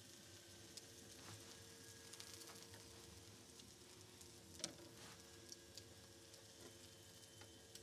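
Faint sizzling and scattered crackles from a lamb roasting on a spit with potatoes, its fat melting, with one sharper crack near the middle. A faint steady hum runs underneath.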